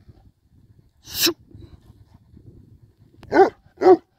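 Albanian Molossus dog giving two barks about half a second apart near the end, after a brief rushing noise about a second in.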